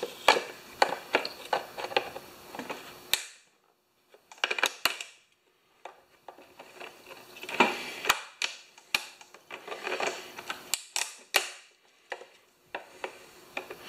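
Pliers and hands working a plastic carburetor vent tube and intake housing loose on a Tecumseh mower engine: scattered sharp clicks, snaps and knocks of tool and hard plastic, with short pauses between them.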